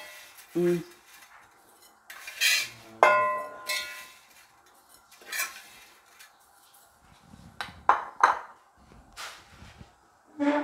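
Metal spoon scraping and knocking against a brass uruli and a bowl as ghee-roasted vermicelli is scooped out, in a string of separate clinks; one knock about three seconds in rings briefly.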